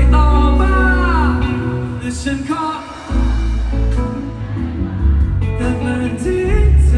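Male voice singing a pop song with band accompaniment and a heavy bass line; the vocal line slides down about a second in.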